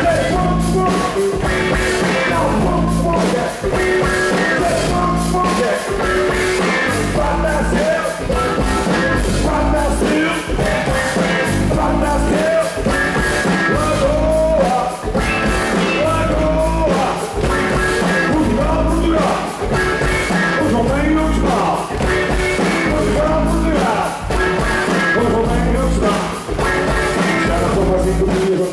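Rock band playing live with a male lead singer over bass guitar, keyboards and drums, with a steady beat.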